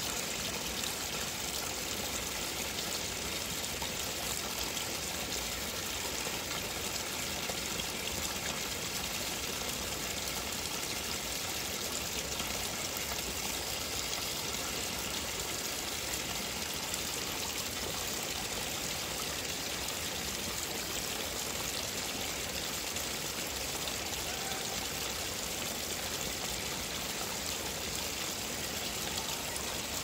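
A small waterfall: a thin stream of water spilling over a mossy rock ledge and splashing into a shallow pool. The splashing is steady and unbroken, with no change throughout.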